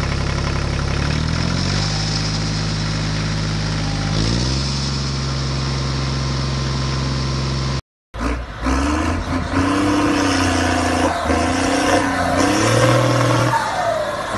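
Engine sound effect: a steady running engine whose pitch steps up twice, which cuts off abruptly just before the halfway point. After a brief silence a different engine sound starts, its pitch wavering and gliding up and down.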